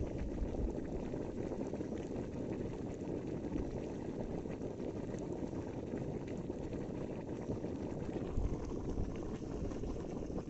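White powder, taken to be quicklime, slaking in a metal basin standing in pond water, bubbling and seething steadily like a boil.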